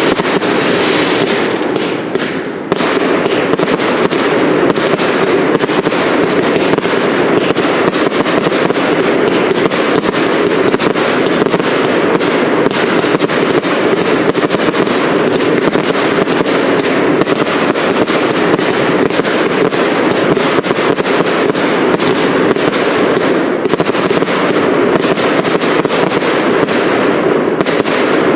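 Cake fireworks display firing a dense, continuous barrage of rapid bangs, with a brief lull about two and a half seconds in.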